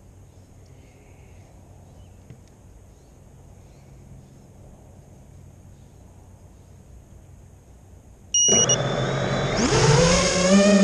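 FPV quadcopter on the ground: about eight seconds of faint steady hiss, then the motors start up suddenly with a brief beep and spin up, their whine gliding upward in pitch as the quad throttles up for takeoff near the end.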